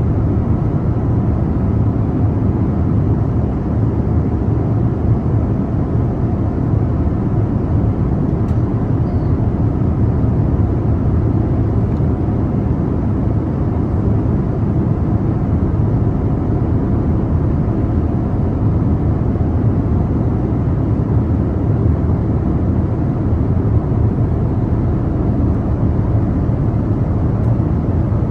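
Steady low rumble and rush of an airliner cabin in flight: engine and airflow noise heard from a window seat, even and unchanging.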